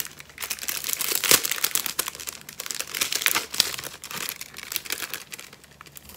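Clear plastic jewellery packet crinkling and rustling as it is worked open by hand, with a few sharp crackles; the crinkling thins out after about four seconds.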